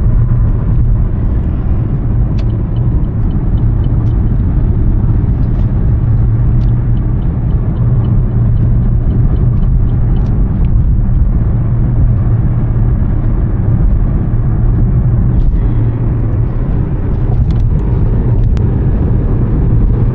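Steady low rumble of a motor vehicle on the move, with a faint run of quick, evenly spaced ticks for several seconds in the first half.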